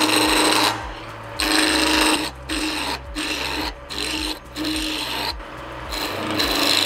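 Wood lathe spinning a small wooden blank while a gouge cuts it round: the cutting edge makes a rough scraping hiss in a series of short passes with brief breaks between them, over a steady low hum.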